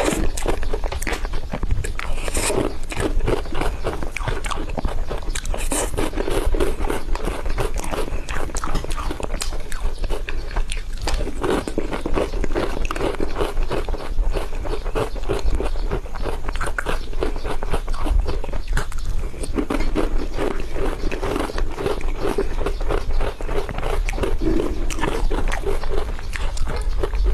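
Close-miked mouth sounds of a person eating whipped cream cake: dense, continuous chewing and smacking clicks, over a steady low hum.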